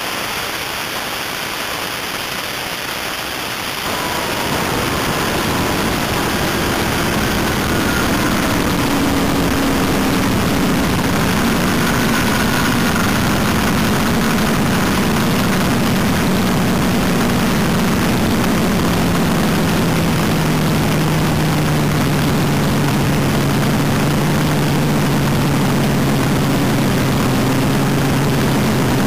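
Open-header V8 of a front-engine dragster running at low revs in the rollout after a pass, mixed with wind rushing over the on-board microphone. The sound gets louder about four seconds in, and the engine note slowly drops and then holds a steady drone.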